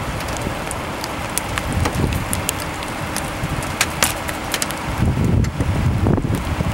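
Strong wind buffeting the microphone in gusts, with a low rumble, near a large tornado. Scattered sharp ticks run through it, the loudest a few about four seconds in.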